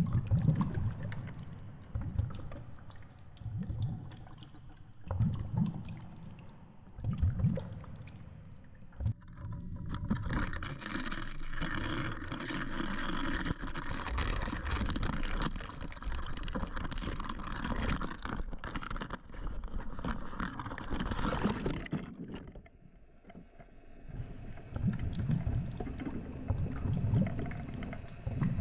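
Water noise picked up by a camera in the sea: irregular low surges and thuds, with a louder, steadier rush of noise through the middle stretch.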